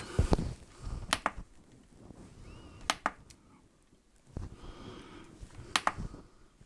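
Handling of a metal LED floodlight sitting on a kitchen scale: a thump near the start, then three pairs of sharp clicks and a soft knock.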